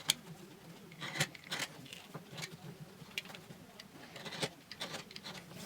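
Faint, scattered taps and clicks of small pieces of wood and foam being handled and set down on a workbench.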